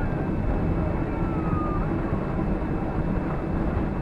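Steady low rumble of a Boeing 767-300's engines and airflow heard inside the passenger cabin.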